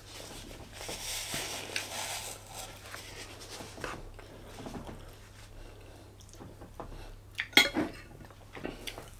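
Tableware being handled: a metal fork clinking and scraping in a bowl, with two sharp clinks a little past halfway that are the loudest sounds, and softer taps and rustles of plates and food before them.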